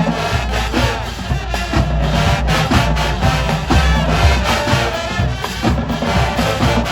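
High school marching band playing: brass section with marching drums keeping a steady beat.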